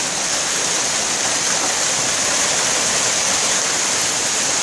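Heavy hail pelting the surface of the water: a dense, steady hiss of countless impacts.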